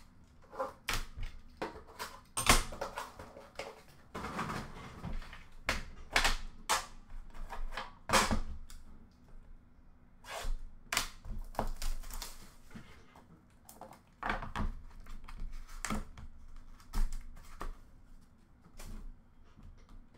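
Trading cards, a card box and its packaging being handled and set down on a glass counter: irregular sharp clicks and taps, with soft rustling in between.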